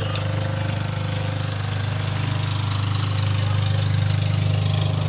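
An engine running steadily at idle, a low, even throb with a rapid regular pulse.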